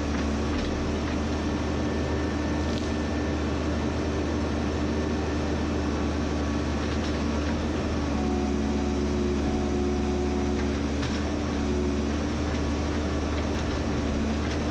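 A large engine running steadily at a constant speed, with a low rumble under an even hum.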